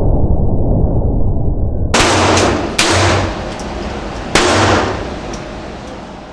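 Smith & Wesson 22A .22 LR pistol shots: a deep, muffled rumble for about two seconds, then three sharp cracks, each with a trailing tail, spread over about two and a half seconds, fading out near the end.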